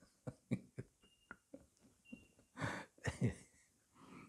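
Quiet chuckles and breaths after a joke, with a few short soft sounds scattered through the pause.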